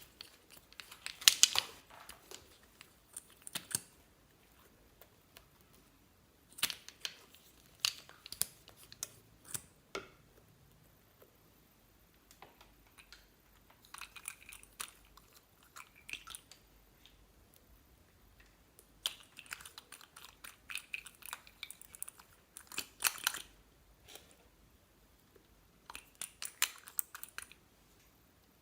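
Slime being squeezed and kneaded by hand, giving bursts of rapid wet clicking and crackling a few seconds apart, with short pauses between.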